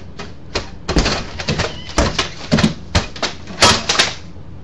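Door mail slot flap clacking and paper rustling as a letter is worked through the slot and pulled inside: a quick, uneven run of sharp clacks that stops about four seconds in.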